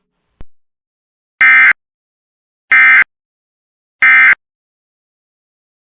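Emergency Alert System end-of-message signal: three short, loud bursts of SAME digital data screech about a second apart, marking the end of the alert. A brief click comes just before the first burst.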